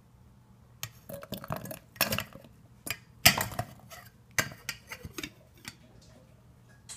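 Frozen berries dropping from a bowl into a stainless steel blender jar: a run of irregular hard clattering knocks against the metal, the loudest about three seconds in, dying away after about five seconds.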